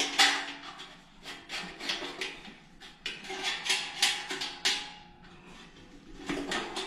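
Stainless steel Solo Stove heat deflector being handled while a leg clip is worked into its slot: a run of irregular light metal clicks, taps and scrapes.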